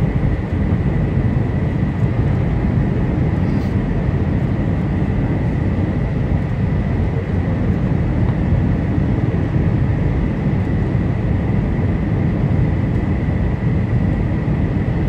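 Steady cabin noise of a jet airliner descending to land: a low rumble of turbofan engines and airflow, with a thin steady high whine above it.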